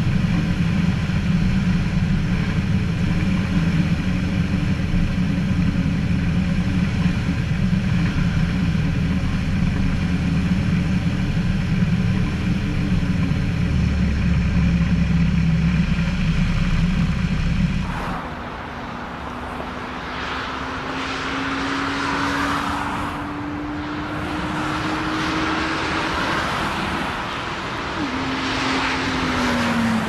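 Ikarus C42B microlight's propeller engine running steadily during a crosswind landing, heard loud from on board with wind rush, the low rumble growing stronger about 14 s in as it reaches the runway. About 18 s in it cuts to a jet airliner landing, heard from outside the airfield: gusty wind noise and engine sound with a thin whine that rises slowly and drops near the end.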